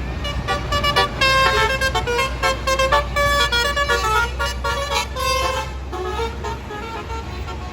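A tour bus's basuri 'telolet' musical horn playing a quick tune of short toots at changing pitches, over the steady low running of the bus engine. The tune thins out and grows fainter over the last couple of seconds.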